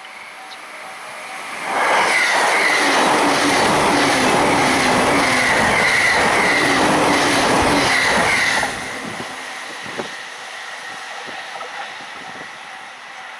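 A Joban Line train passing a level crossing at high speed: a sudden rush of wheel-on-rail and running noise about two seconds in, steady for about seven seconds with a faint regular clatter, then cutting off abruptly. A level-crossing warning bell rings before the train arrives and again near the end.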